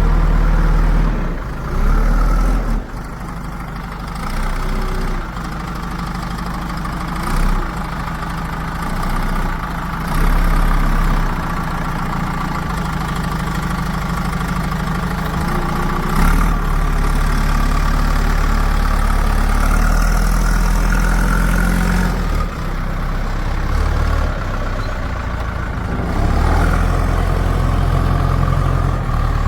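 Heavy diesel machinery engine running, mostly at a steady idle, with its level rising and falling several times as the throttle or load changes.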